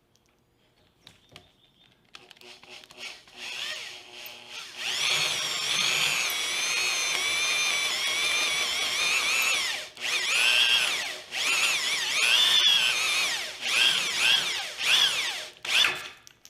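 Electric hand drill boring a 1/2-inch bit through thick steel plate, the bit cutting with a high, wavering squeal. It starts faintly a couple of seconds in and runs steadily from about five seconds. In the second half the drill is run in short on-off bursts.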